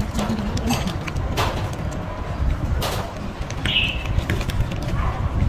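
Outdoor background ambience: a steady low rumble with scattered light clicks, and one short high chirp about four seconds in.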